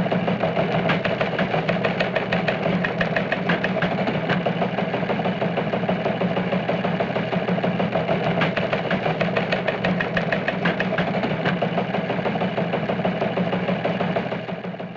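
Engine idling steadily with a fast, even ticking beat, fading out near the end.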